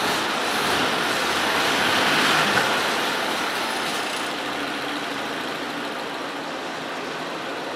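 1928 Ford Model A four-cylinder engine running, louder over the first few seconds and then easing down to a steady idle.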